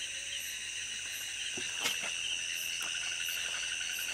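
Crickets calling in a steady high-pitched night chorus, with one faint click about two seconds in.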